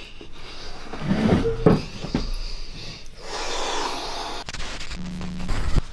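A man grunting and breathing heavily, with a long breathy exhale in the middle, as he drops into a chair worn out. A short low hum comes near the end.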